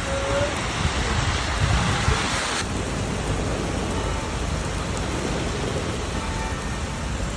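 Typhoon rain pouring down steadily as a dense hiss, with a low rumble of wind in the first two seconds. About two and a half seconds in, the higher part of the hiss drops off abruptly.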